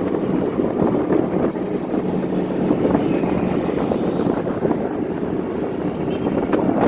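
Motorcycle engine running steadily while riding along, with wind buffeting the microphone.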